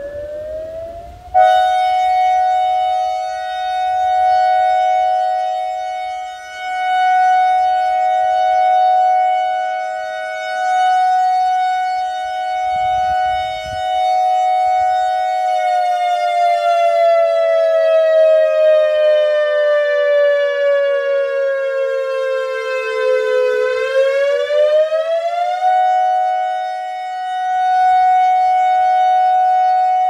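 ACA Alertronic AR-1600 electronic siren sounding through its rotating horn. A rising tone jumps to a steady high pitch about a second and a half in and holds. Later it glides slowly downward for several seconds, sweeps quickly back up and holds steady again, swelling and fading in loudness as the horn turns.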